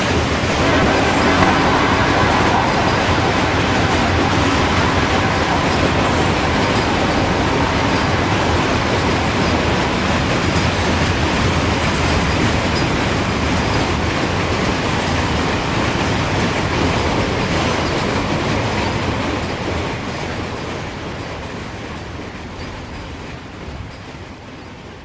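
Norfolk Southern freight train's cars rolling past on the rails, a steady rumble that fades away over the last several seconds.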